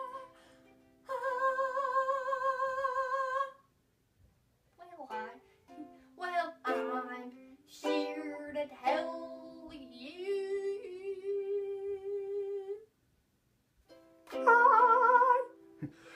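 A girl's voice singing long held notes with vibrato over a ukulele, with stepped plucked notes in the middle and two brief silent pauses.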